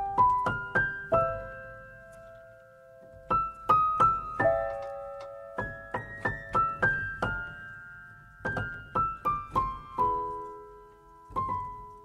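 Solo piano introduction of a song: a slow melody of single notes, each struck and left to ring, in short phrases with brief pauses.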